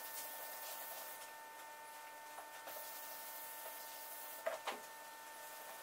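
Faint hand scuffing of a car door panel with an abrasive pad during final prep before painting, over a steady electrical hum, with two short louder scuffs about four and a half seconds in.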